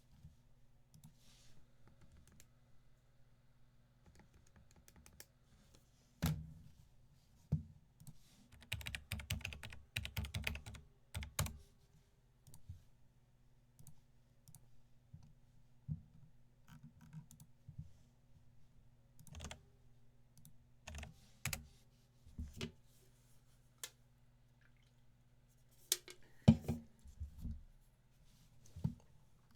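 Clicks and short runs of typing on a computer keyboard, with a dense burst of keystrokes about a third of the way in and another cluster near the end, over a faint steady electrical hum.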